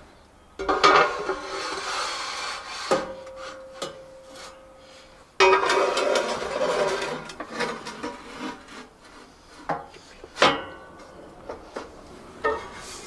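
Metal amplifier cases being slid across the steel-plate shelves of an amp rack, scraping for about two seconds at a time, twice, with several knocks as they are set down and pushed into place, one of them ringing briefly.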